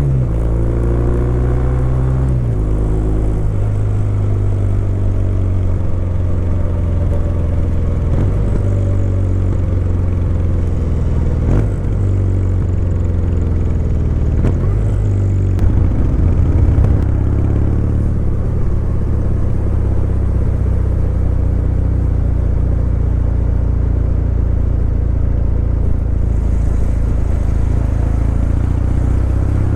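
Kawasaki W800's air-cooled parallel-twin engine running while the motorcycle is ridden, recorded from on the bike. The engine note drops over the first couple of seconds, then holds fairly steady as it cruises.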